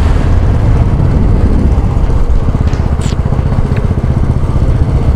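Motorcycle engine running at a steady cruise while being ridden, a fast, even beat of exhaust pulses.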